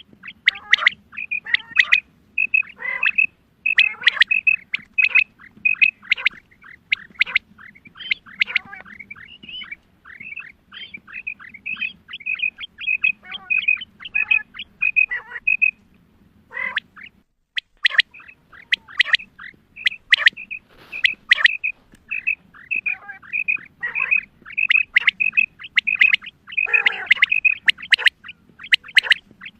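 Female quail calling in a rapid run of short, high chirps mixed with downward-sliding calls, broken by a brief pause about halfway through.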